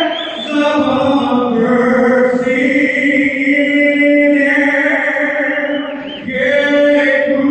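A man singing a slow song solo into a microphone, amplified through an arena's sound system. He holds long notes that step up and down in pitch, with a brief pause for breath about six seconds in.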